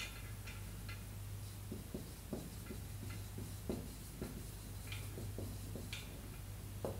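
Dry-erase marker writing on a whiteboard: irregular short scratches and taps of the tip against the board, over a steady low hum.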